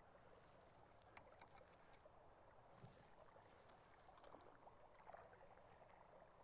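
Near silence: faint river water, with a few soft ticks.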